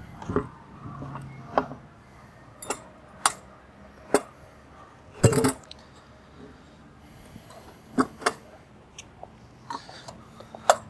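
A metal lifting handle and an approximately 80-pound Fibrelite FL90 composite manhole cover knocking and clicking as the cover is levered up and out of its frame in a few pulls. About ten short sharp knocks come at irregular intervals, the loudest and longest a scraping knock about five seconds in.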